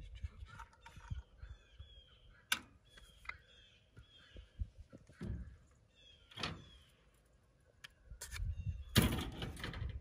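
Plastic squeeze-and-measure jug of permethrin concentrate being handled and squeezed, giving scattered knocks and clunks, with a louder scuffling rattle near the end. The jug's measuring chamber won't work properly, probably because the concentrate has thickened. Birds chirp in the background.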